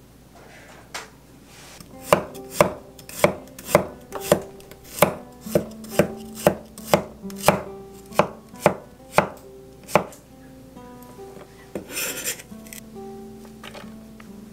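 Wide-bladed kitchen knife chopping garlic cloves on an end-grain wooden cutting board: a steady run of sharp knocks, about two a second, that starts a couple of seconds in and stops after about eight seconds. A brief scrape of the blade across the board follows near the end.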